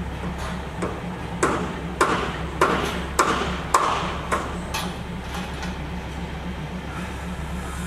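A passing train's wheels clanking over rail joints: a run of about eight sharp metallic clanks, roughly two a second, loudest in the middle, over a steady low engine hum.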